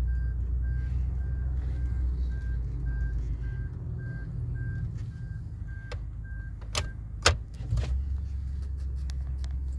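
Ford F-250 pickup's engine idling, heard from inside the cab, with an in-cab warning beep repeating about twice a second. The beeping stops about seven seconds in, amid a few sharp clicks and knocks, and the engine drone then settles to a lower, steadier note.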